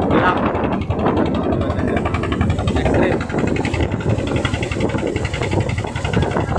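Small fishing boat's engine running steadily under way.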